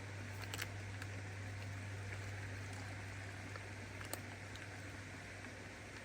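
Faint steady background hiss with a few light clicks and taps of handling: a small cluster about half a second in and one sharper click just after four seconds.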